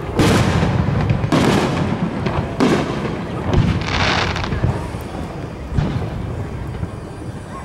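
Aerial firework shells bursting: four booms roughly a second apart, then a hissing spray about four seconds in as a gold glitter shell breaks, and a fainter pop near six seconds.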